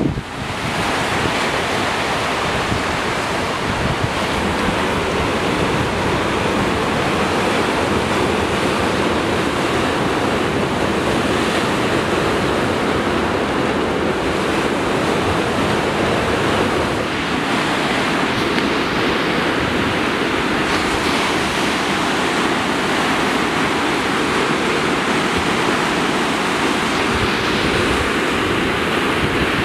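Pacific Ocean surf breaking among sea rocks: a steady rush of waves, with wind on the microphone.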